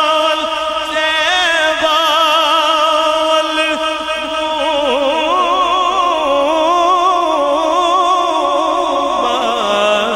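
A man singing a Punjabi naat solo in long, drawn-out notes, the pitch wavering and gliding in ornamented runs.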